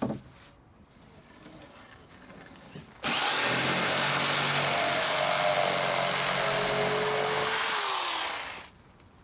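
An electric power tool starts abruptly about three seconds in and runs steadily for around five seconds. Its motor then winds down, the pitch falling as it stops. Faint handling noises come before it.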